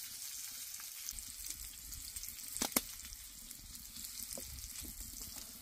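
Gnocchi frying in a cast-iron pan, a steady fine sizzle, with two sharp clicks close together about halfway through.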